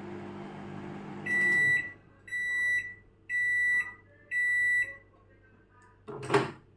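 LG microwave oven humming as it runs, shutting off about a second and a half in, then four beeps about a second apart signalling the end of the cooking cycle. A short thump near the end.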